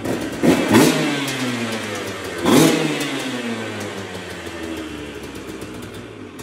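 Dirt bike engine running, blipped twice: each rev climbs sharply, then winds slowly back down toward idle.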